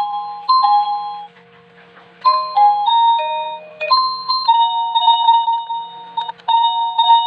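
Wireless doorbell chime playing an electronic melody of clear beeping notes: a short phrase, a pause of about a second, then a longer tune, over a faint steady hum.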